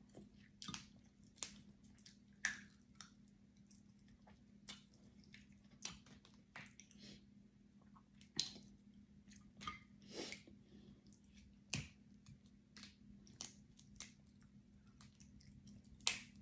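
Crab legs being cracked and picked apart by hand, with irregular sharp shell cracks and snaps scattered through, plus wet chewing of the crab meat. The loudest crack comes near the end.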